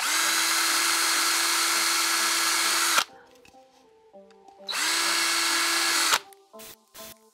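Cordless drill spinning up and running steadily twice, about three seconds and then about a second and a half, boring handle holes through the wall of a small 3D-printed plastic bucket.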